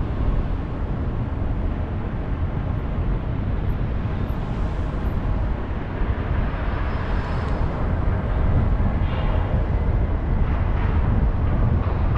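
Car driving along a city street: a steady low rumble of road and engine noise.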